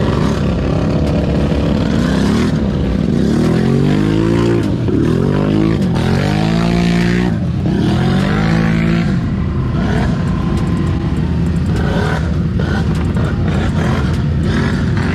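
ATV engine revving up and down several times, then running on more steadily.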